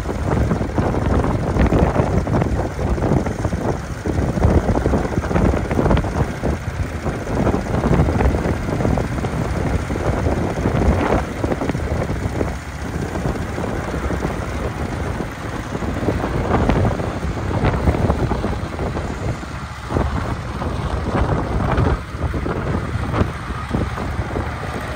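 John Deere LA tractor's two-cylinder engine running steadily as the tractor is driven.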